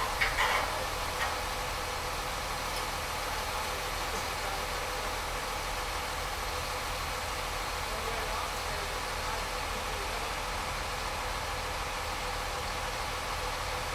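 An engine idling steadily, with a few brief knocks near the start and no pile-hammer blows.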